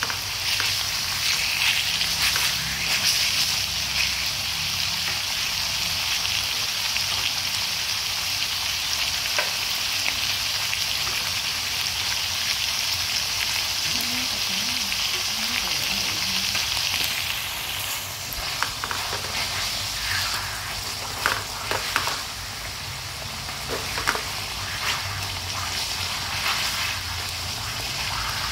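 Lemongrass-marinated pork cutlets sizzling in hot oil in a metal frying pan. The sizzle is a dense, steady hiss for about two-thirds of the time, then grows weaker, with scattered sharp pops and clicks.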